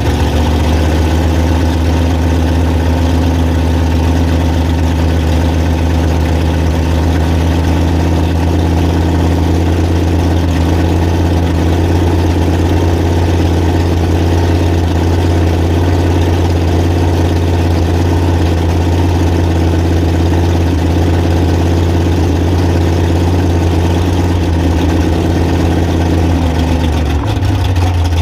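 Mega truck engine running steadily at low revs, heard close up from beneath the truck as it rolls slowly. Near the end the engine note drops a little.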